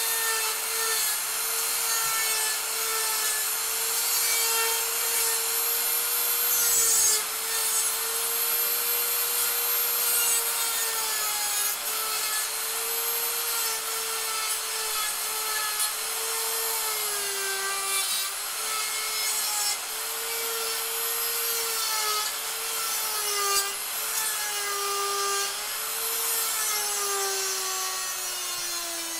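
Electric die grinder with a Saburrtooth taper bit whining at speed and rasping away wood. Its pitch dips now and then as the bit is pressed into the carving under load, and drops again near the end.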